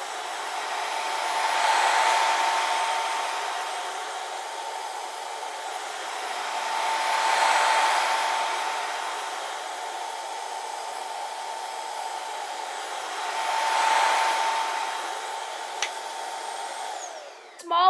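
Bissell ProHeat Advanced upright carpet cleaner running with a steady motor whine. It swells louder and fades three times as it is pushed to and fro across the carpet, and shuts off near the end.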